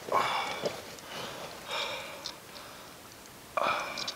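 A man sniffing and breathing hard through his nose three times, about two seconds apart.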